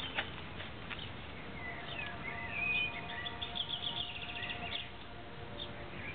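Small birds chirping and singing, short whistled notes and chirps with a quick trill about four seconds in, over a faint steady background hum. A single sharp tap just after the start.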